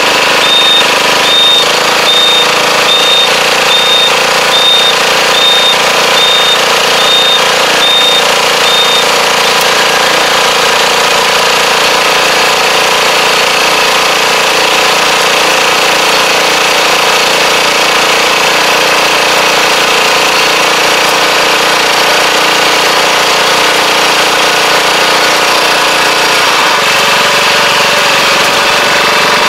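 Kubota four-row riding rice transplanter working through a flooded paddy. Its engine runs steadily under a rapid, jackhammer-like clatter from the planting mechanism. A short, high beep repeats about twice a second for the first nine seconds or so.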